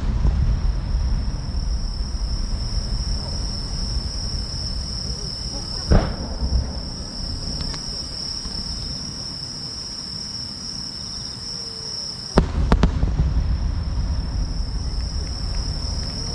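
Large aerial firework shells bursting: a boom about six seconds in and a quick double boom about twelve seconds in, each followed by a long rolling rumble. A steady, high insect chorus chirrs throughout.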